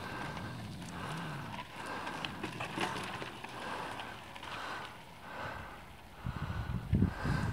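Mountain bike rolling along a rocky dirt trail, with rhythmic hard breathing every second or so close to the microphone. Louder rumbling and rattling of tyres over rough ground near the end.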